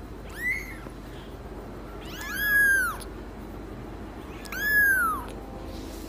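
A fluffy white kitten mewing three times: a short high mew about half a second in, then two longer mews, each rising and then falling in pitch.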